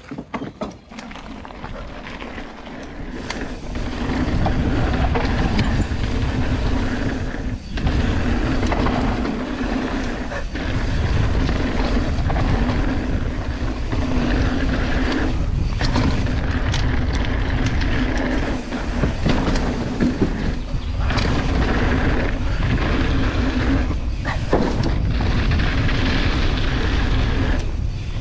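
Mountain bike riding fast down a dirt trail: a steady rush of wind and tyre noise that builds over the first few seconds, with several brief dips.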